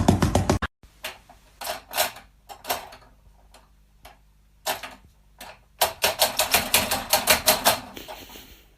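Sharp clicks or taps: a few scattered ones, then a quick run of about eight a second near the end. Background music stops just before the clicks begin.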